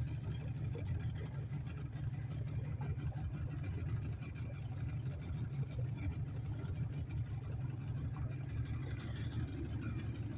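Boat motor running steadily underway, a constant low rumble.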